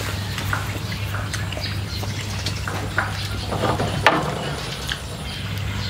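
Eating sounds: soup spooned from a pot and slurped, with short clicks of spoons on plates and the pot, over a steady low hum. A spoon dipping into the pot gives a louder scrape and clink about four seconds in.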